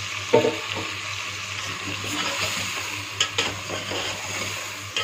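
Chicken and freshly added ground tomatoes sizzling in hot oil in an aluminium pot, stirred with a metal spoon. There is a sharp knock of the spoon on the pot about half a second in and a few light clinks a little after the middle.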